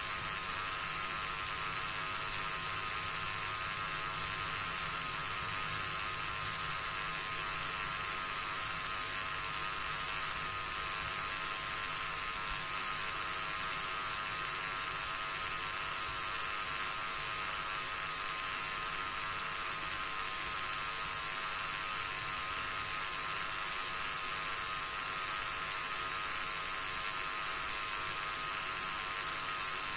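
Steady high hiss with a faint buzzing hum underneath, unchanging throughout, with no voices, chanting or bells.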